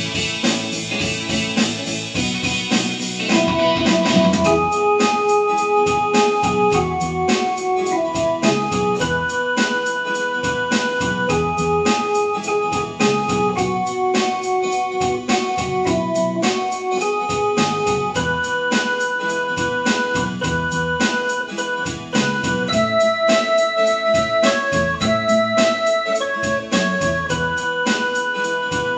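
Instrumental hymn music on an electronic keyboard: a melody in held, organ-like notes over a steady, evenly spaced beat. The opening few seconds are fuller before the single melody line takes over.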